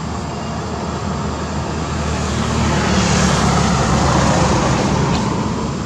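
A motor vehicle going past: a steady low engine hum with road noise that swells about halfway through and eases off near the end.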